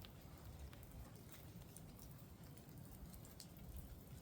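Near silence: a faint low rumble with a few soft, faint ticks.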